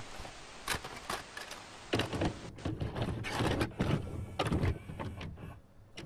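Intro sound effect of a VHS tape loading: a hiss of tape static, then from about two seconds in a quick irregular run of clicks and clunks like a VCR's tape mechanism, dying away near the end.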